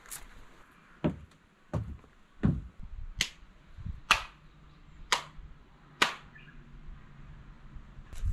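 A few dull knocks, then four sharp hand claps about a second apart: worshippers clapping in prayer (kashiwade) before a Shinto shrine hall.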